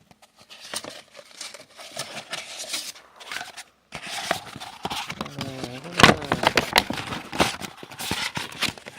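A paper poster being unwrapped and unrolled by hand: paper rustling and crinkling with scrapes and light knocks, the sharpest knock about six seconds in.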